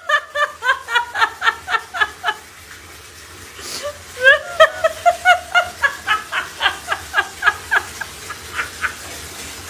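High-pitched fits of rapid laughter, short pulses about four or five a second. There is a short pause, then a rising squeal about four seconds in, and the laughing starts again.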